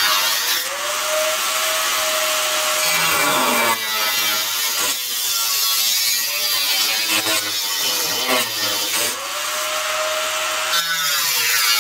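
Angle grinder working the bare steel of a truck frame rail: a loud, steady hiss of the wheel on metal over the grinder motor's whine. The whine sags in pitch and climbs back a couple of times as the load on the wheel changes.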